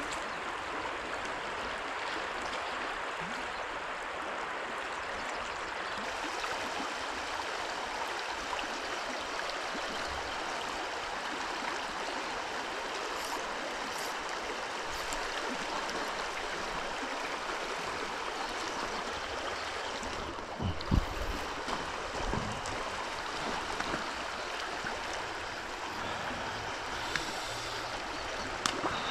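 River water flowing steadily over shallows, a continuous rushing babble. A few dull low knocks stand out about two-thirds of the way through.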